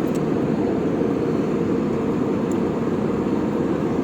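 Steady, even rushing noise inside the passenger cabin of an Airbus A320-200 in flight: the airliner's engines and airflow heard as a constant low drone.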